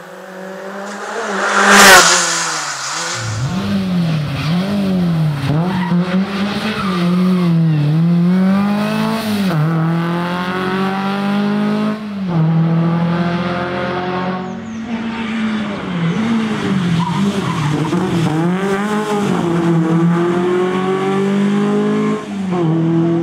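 A rear-engined Škoda 130 rally car's engine revving hard, its pitch climbing and dropping again and again through gear changes and lifts. There is a loud sharp burst about two seconds in, and the sound breaks off abruptly a few times where separate passes are cut together.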